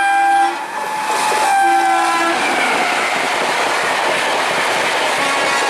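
Indian Railways express train sounding its horn in two blasts, one right at the start and another about a second and a half in, then the steady rush of the train running past at speed.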